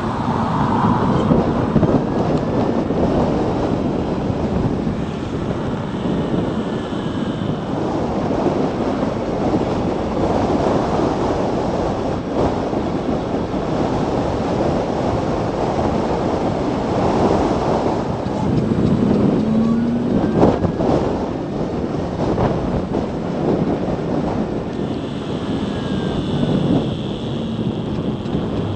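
Wind buffeting the microphone and road noise from a Zero DSR electric motorcycle being ridden, with a steady rushing that rises and falls. A few sharp knocks come about twenty seconds in.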